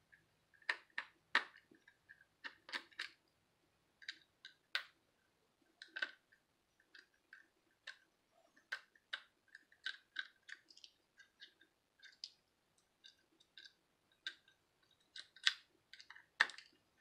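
Small screwdriver working tiny screws out of a Cobra MicroTalk walkie-talkie's plastic case: scattered, irregular light clicks and ticks of metal on plastic, a little louder near the end.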